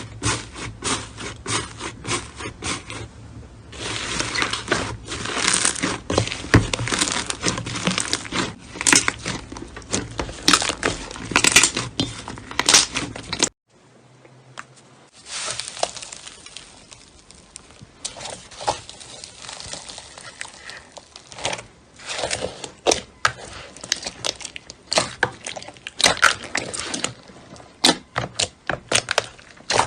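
Slime being squeezed, poked and stretched by hand, making dense crackling, popping clicks. There is a sudden cut about halfway through, then another stretch of crackling slime.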